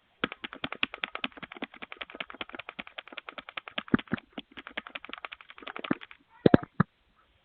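Rapid repeated tapping on a doorbell camera's button, picked up by the doorbell's own microphone: a fast run of clicks, about nine a second, then two louder knocks near the end.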